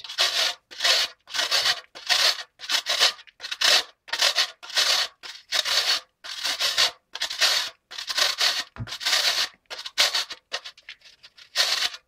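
Lumps of soda ash rubbed across a metal hand grater, a rhythmic rasping scrape at about two to three strokes a second.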